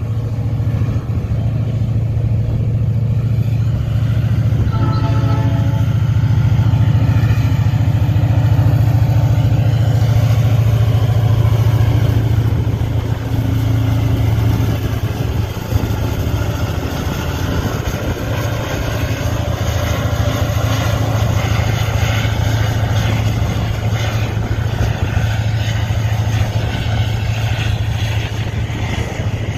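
EMD SD40-2 diesel-electric locomotive with a turbocharged 16-cylinder 645 engine, working hard at nearly full power as it hauls a heavy coil train past. A deep, steady engine drone is loudest as the locomotive goes by, then eases a little as the loaded coil cars roll past.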